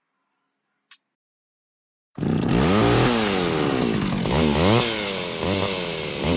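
Small petrol engine revving up and down again and again, cutting in abruptly about two seconds in.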